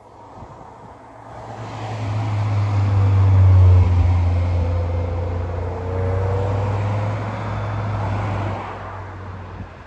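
Volvo B7TL double-decker bus's six-cylinder diesel engine working hard, its deep note building over a couple of seconds, then easing off gradually and fading near the end, with a faint wavering whine over it.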